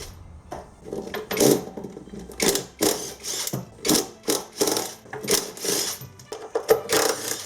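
Background music with irregular mechanical clicking and rattling strokes, about two a second.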